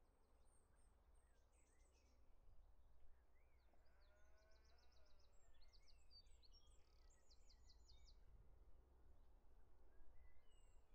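Near silence: faint birdsong, a few rapid high trills and scattered chirps, over a low steady rumble.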